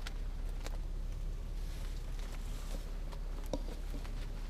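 Faint outdoor ambience: a low steady rumble with scattered light ticks and crackles, no single loud event.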